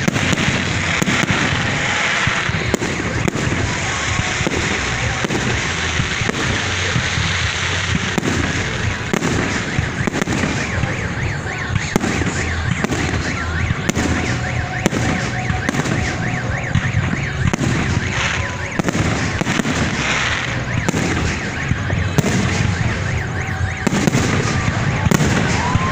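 Fireworks display: aerial shells bursting one after another, with a steady run of bangs and crackling.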